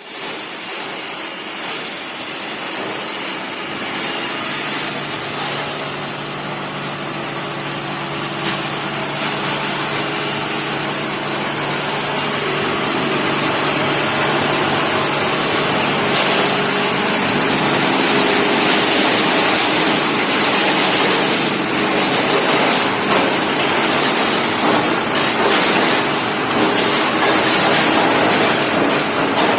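Tube ice machine running steadily: a mechanical hum with a hiss over it, slowly getting louder, with a brief rattle of clicks about nine seconds in.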